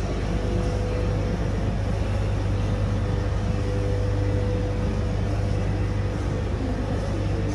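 Steady low rumble with a faint constant hum above it; no distinct events stand out.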